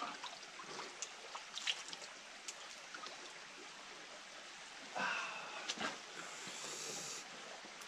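Spring water of the Júcar's source running steadily, with a few small splashes and a louder stretch of splashing about five seconds in as water is scooped up by hand to drink.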